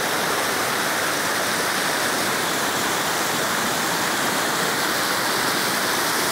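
Reservoir overflowing: water pouring over the spillway crest of the dam and rushing through the channel below, a steady, even rush of water.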